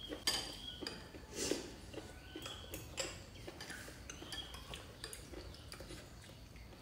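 Metal spoons and forks clinking and scraping against ceramic bowls and a glass jar of chili oil at a meal: scattered light taps and clicks.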